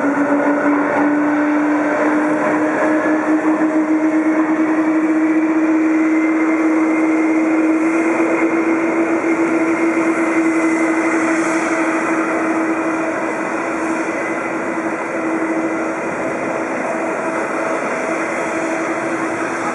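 Boeing 777-200 airliner's turbofan engines running as it taxis: a steady whine with its pitch creeping slightly upward, over a broad rush of engine noise.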